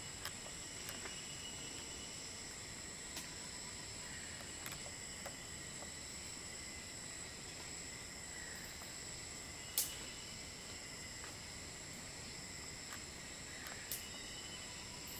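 Insect chorus droning steadily, several high-pitched unchanging tones held together, with a few short sharp clicks or snaps scattered through, the loudest about ten seconds in.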